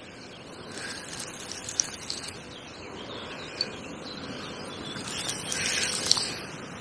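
Lakeside outdoor ambience: faint bird chirps over a steady background hiss, with a few small clicks and a brief louder rustle about six seconds in.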